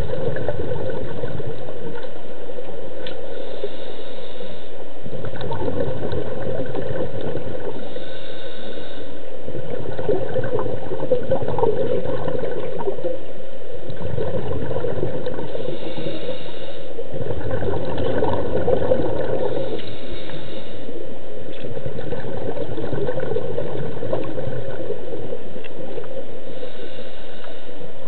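Scuba breathing heard underwater: a short hiss from the regulator on each inhalation, then a long gurgling rush of exhaled bubbles. The breaths repeat every several seconds.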